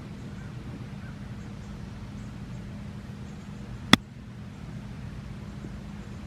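A golf club strikes the ball once for a chip shot, a single sharp click about four seconds in, over a steady low hum.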